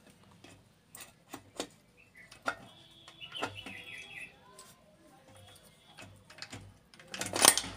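Steel gears and shafts of a Hero Honda 100 cc motorcycle gearbox clicking and knocking against the crankcase as they are worked into place by hand, with a louder metallic rattle near the end.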